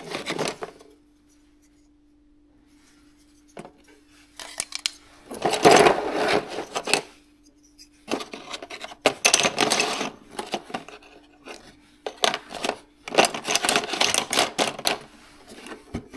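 Small circuit-board adapters with plastic sockets clattering and sliding against each other and the cardboard box as they are rummaged through by hand, in several bursts of a few seconds with quiet gaps between.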